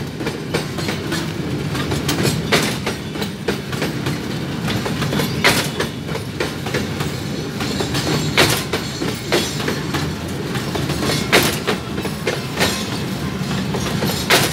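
Freight train of covered hopper cars rolling past close by: a steady rumble of steel wheels on rail, with sharp clacks as the wheels cross a rail joint, the loudest coming about every three seconds.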